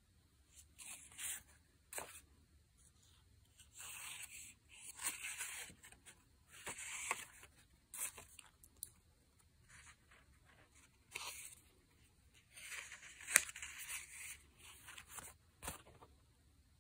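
Sheets of printed scrapbook paper being handled and shuffled: crisp rustling in irregular short bursts, with a few sharp clicks.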